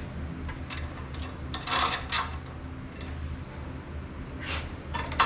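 Sharp knocks from hands handling parts on the garden tractor: two about two seconds in and two more near the end. Under them a cricket chirps in a steady, fast rhythm over a low hum.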